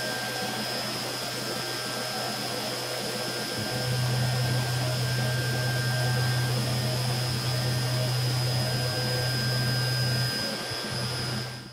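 3-axis CNC milling machine cutting a workpiece with an end mill under flood coolant: a steady machine hum mixed with the hiss of the coolant spray. The low hum grows louder about four seconds in, dips briefly near the end, and then the sound fades out.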